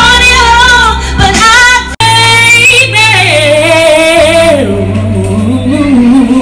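A woman singing a slow ballad into a microphone, holding long notes over a steady low accompaniment. Her sung line slides lower about halfway through. The sound cuts out for an instant about two seconds in.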